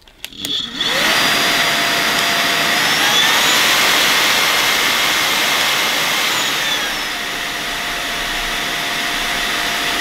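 Bosch BCS612GB cordless vacuum's handheld motor unit clicked on and spinning up to a steady whine. About three seconds in the turbo setting is engaged: the pitch rises and it runs louder. About seven seconds in the pitch glides back down to the quieter normal setting.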